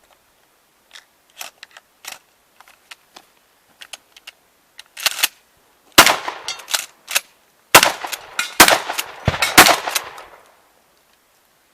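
Shotgun firing a rapid string of about eight loud shots over some four seconds, starting about six seconds in, after fainter sharp cracks.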